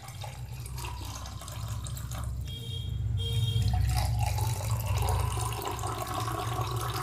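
Water poured from a steel tumbler into one drinking glass and then a second, splashing continuously as each glass fills halfway.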